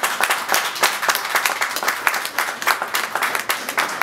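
An audience applauding, with many hands clapping.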